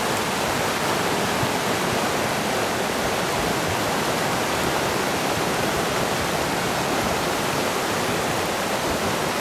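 River in flash flood, a muddy torrent carrying driftwood and debris, rushing with a loud, steady wash of water noise.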